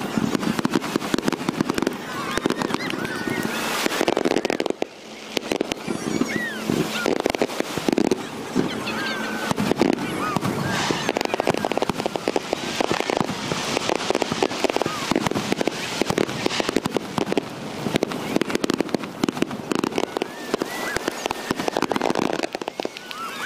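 Aerial fireworks bursting in a dense, rapid run of crackles and bangs, with a brief lull about five seconds in.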